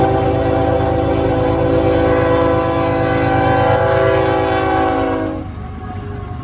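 Locomotive air horn sounding one long chord of several notes at once over the low rumble of the diesel engine. The horn stops about five seconds in and the rumble continues.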